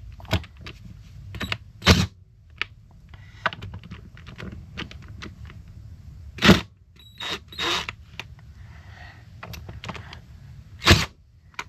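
Hammer blows on a hand impact driver set in reverse to break loose the reed pedestal screws. There are four sharp strikes a few seconds apart, with lighter clicks and scraping of metal tools and parts between them.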